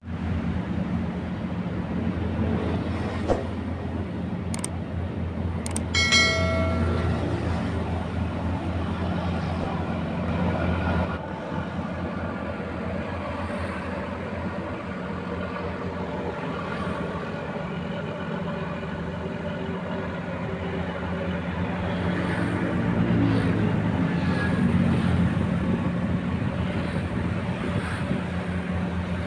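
Steady low drone of a tugboat's diesel engine running. A few sharp clicks come a few seconds in, followed by a short high-pitched tone.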